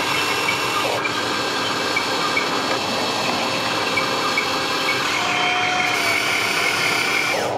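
Huina RC toy excavator's small electric gear motors whirring as the upper body slews round on its tracks, a steady gritty grinding.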